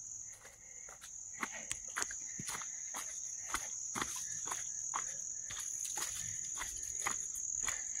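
Footsteps crunching on a dirt trail strewn with dry leaves, irregular and close, over a steady high-pitched insect chorus.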